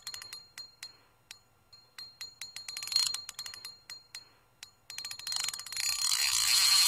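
Sound effects over an animated end card: a run of sharp ticking clicks with a bell-like ring. The clicks bunch into a quick flurry about three seconds in, and from about five seconds a rushing whoosh swells and keeps getting louder.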